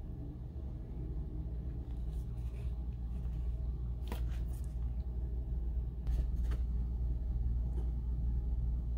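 Steady low rumble, with a few light clicks and taps from handling a small leather card case and a paper gift box: one pair about four seconds in and another around six seconds.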